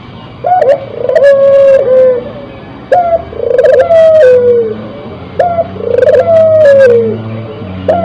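Dove cooing: the same phrase repeated about every two and a half seconds, a short note, then a rolling purr, then a long falling coo. Three full phrases, with a fourth starting near the end.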